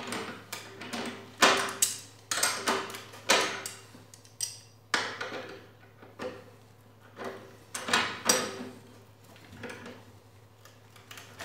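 Tongue-and-groove pliers gripping and turning a bolt with a washer that is being tightened into a wooden chair frame to fix a loose joint: irregular sharp metal clicks, closer together in the first half and sparser later, over a faint steady hum.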